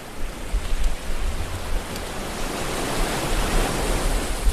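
Live theatre audience applauding; the sound rises shortly after the start and holds steady.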